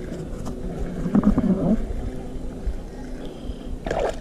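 Spinning reel being cranked to bring a small bass in to the boat, over a steady low rumble, with a couple of short knocks or splashes.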